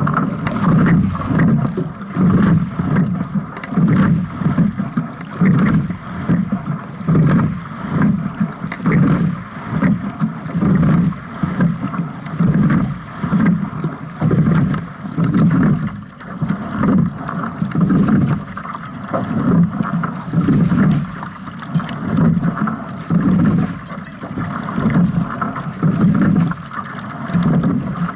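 Double sculling boat under way at a steady rowing rate: water rushing along the hull and wind on the bow-mounted microphone, surging in an even rhythm roughly every second with the strokes.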